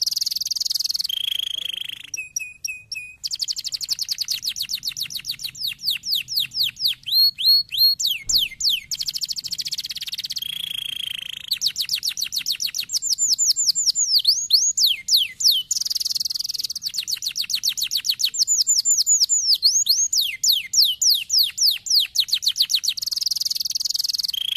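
Domestic canary singing a long, unbroken song: fast trills of repeated falling whistled notes, with short buzzy rolls and a few brief held notes in between.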